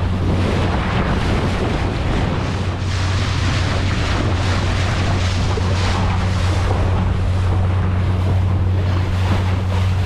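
Boat under way at speed: a steady low motor drone under water rushing and splashing along the hull, with wind buffeting the microphone.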